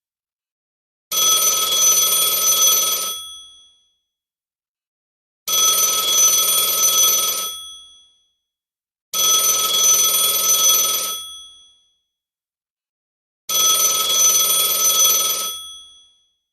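Telephone bell ringing in a repeating cadence: four rings of about two seconds each, with about two seconds of silence between them, each ring trailing off as it ends.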